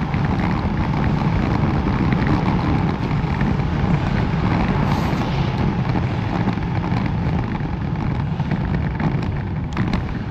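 Wind rushing over the microphone of a moving bicycle: a steady, deep rumble that holds throughout.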